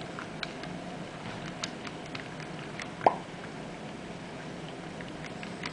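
HO-scale model freight train rolling along the layout: a steady low hum with scattered light clicks, and one sharper click with a brief ring about three seconds in.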